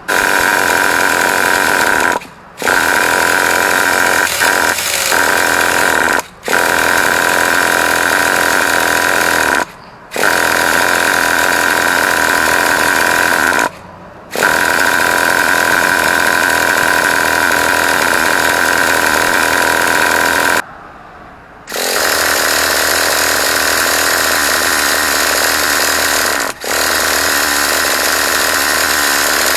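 Electric starter spinning the Traxxas T-Maxx's 2.5 cc nitro engine in about seven steady, loud bursts of a few seconds each, with short pauses between them. These are repeated cranking attempts, and the engine does not catch and run.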